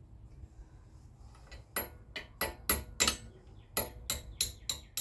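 Sharp metal-on-metal taps, about ten in a quick uneven series starting about two seconds in, as a cotter pin is worked through the hole in a rear axle nut and its retainer.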